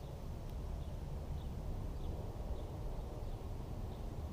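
Small toothpick FPV quadcopter flying overhead, its propellers giving a steady low whir, with a short bird chirp repeating about every half second.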